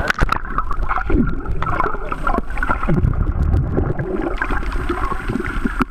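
Muffled water sloshing and gurgling with bubbles around a camera held just under the sea surface, with a splash near the start as it goes under.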